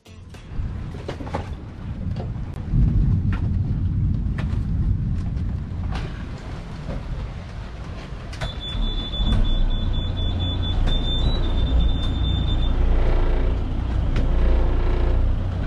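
Strong wind buffeting the microphone, heard as an uneven low rumble that swells about two and a half seconds in, as a squall arrives, with a few sharp knocks. A thin high whistle comes and goes for about four seconds past the middle.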